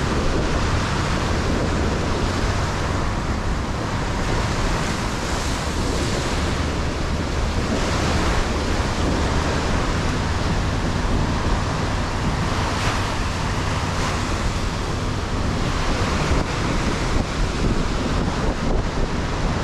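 Ocean surf washing onto a sandy beach, a steady rushing that swells now and then as waves break, with wind rumbling on the microphone.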